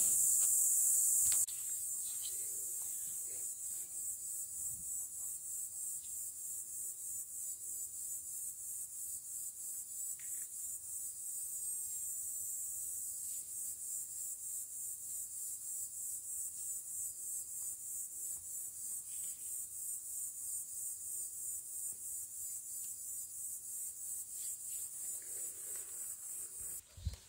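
Insects singing in a high, steady, pulsing trill of about two to three pulses a second; it is a continuous buzz for the first second or so. The trill cuts off just before a single thump near the end.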